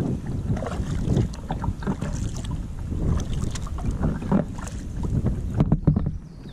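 Wind buffeting the microphone on a kayak's bow, with water splashing and slapping against the hull on choppy water. A few sharper splashes come near the end, and then the wind noise drops away.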